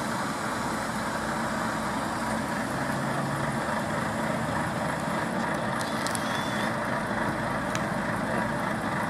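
Heavy trucks' diesel engines idling, a steady, even rumble.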